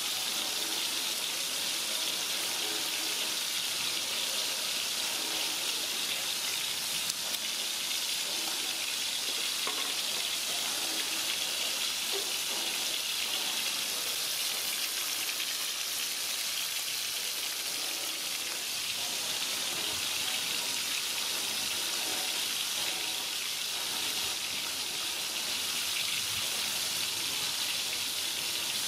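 Two horse mackerel frying in hot oil in a steel wok: a steady sizzle that does not let up.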